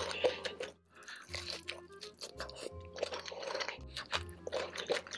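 Close-miked crunching and chewing of crispy breaded fried chicken, many short crackling bites, over background music with a steady bass pulse.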